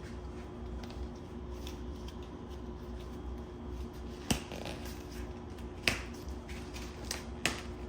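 Four sharp light clicks and taps spread over the last few seconds, over a steady low hum: items being handled and set down while a table is laid.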